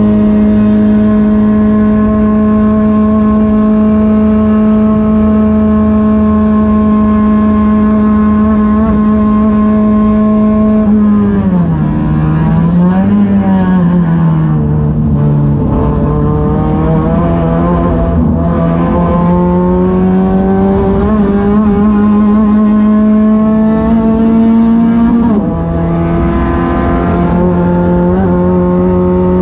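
Race car engine heard from inside the cockpit at high revs. It holds a steady high pitch, then about 11 seconds in the pitch falls and wavers as the car slows for a corner. It then climbs steadily as the car accelerates and drops suddenly with a gear change a few seconds before the end.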